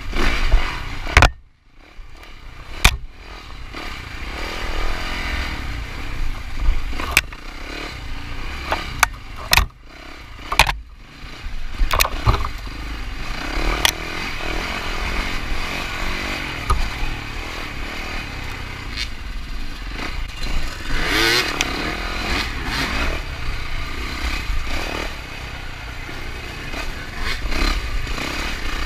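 Yamaha 450 four-stroke dirt bike engine running and revving as it is ridden off-road, with repeated sharp knocks and clattering. The sound drops out sharply for a moment about a second and a half in, and the engine revs up around two-thirds of the way through.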